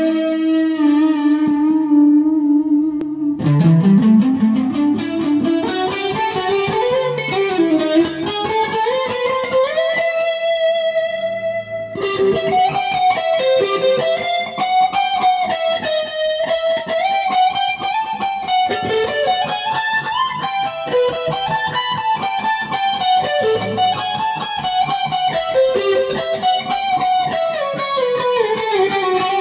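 Ibanez electric guitar played through an amplifier, improvising a single-note lead line. It opens on a long held note, then moves into runs of single notes with bends and slides up and down the neck.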